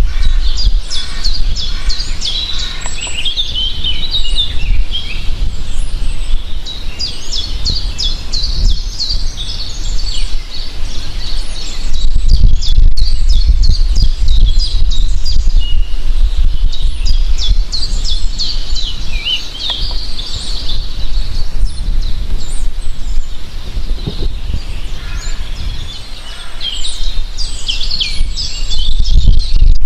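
Several birds chirping and singing at once, a dense chorus of short, quick high calls and trills. A steady low rumble runs underneath.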